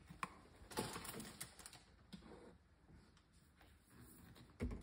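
Faint, scattered clicks and light knocks: several in the first second and a half, and a louder knock near the end.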